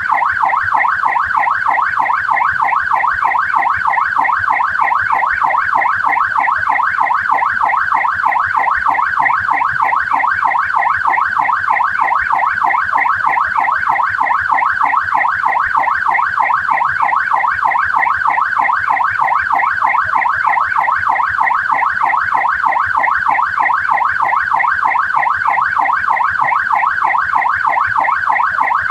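Australian police car siren on a fast yelp, its pitch sweeping rapidly up and down several times a second, steady and unbroken.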